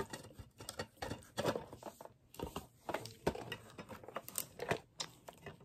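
Handling noise from small picture frames being shuffled and held up in the hands: irregular soft clicks and taps, several a second, fading near the end.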